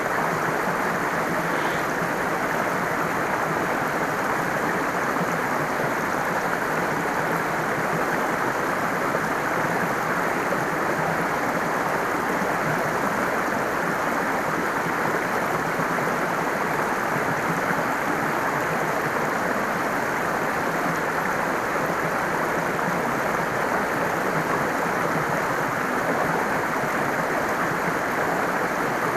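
Flowing stream water running steadily, an even unbroken wash of water noise.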